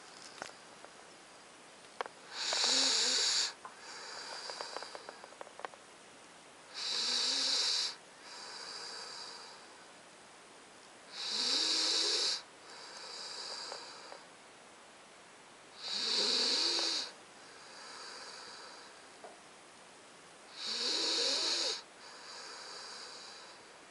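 A 9-week-old Alaskan Malamute puppy snoring in its sleep: five loud snoring breaths about every four and a half seconds, each followed by a softer, whistling breath.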